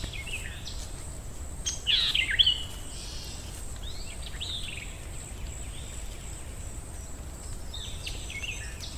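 Forest ambience sound effect: birds chirping in short scattered phrases, the loudest about two seconds in, over a steady low background hum.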